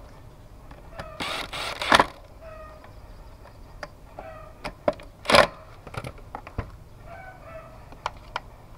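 A cordless drill-driver runs in short bursts, driving the screws that hold the carburetor on a small two-stroke brush-cutter engine. The longest burst lasts just under a second, about a second in, with a shorter one about five seconds in, amid sharp clicks of tools and parts.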